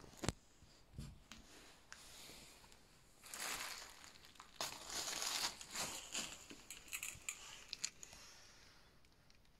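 Debris rustling and crunching as it is disturbed, with a few sharp clicks and knocks; the crunching is loudest in the middle.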